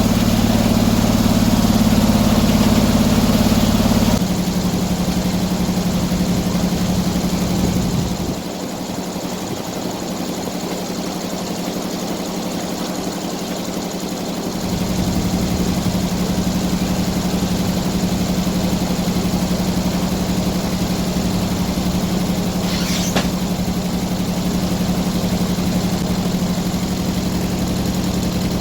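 An engine running steadily at a constant speed. It drops in level about four seconds in and goes quieter and thinner for several seconds in the middle before coming back. A single brief click comes toward the end.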